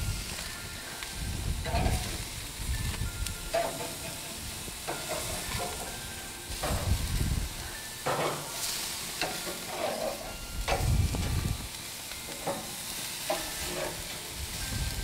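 Beef burgers sizzling on a gas barbecue grill while a long-handled metal spatula slides under them and turns them, with repeated short scrapes and clicks of metal on the grill grates.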